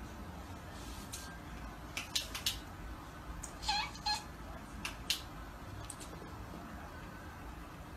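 A domestic cat gives a brief, high chirping call about four seconds in, among a few short, sharp clicks over a low steady room hum.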